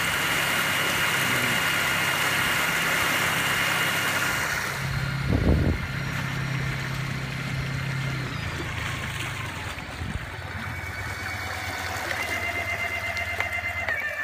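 Torqeedo 1003S electric outboard running with a high whine over rushing water from the boat's wake. About five seconds in the rushing and whine drop away sharply with a brief thump, leaving a lower steady hum, and the high whine comes back near the end.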